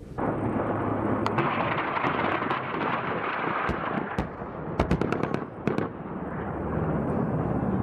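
Bell AH-1Z Viper attack helicopter flying past close by, a dense steady rush of rotor and engine noise. Several sharp cracks cut through it, a quick cluster of them about five seconds in.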